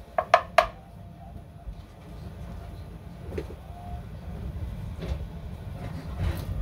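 Three quick knocks of a utensil against a metal pot, close together with a short ring. A low, uneven rumble follows and slowly grows.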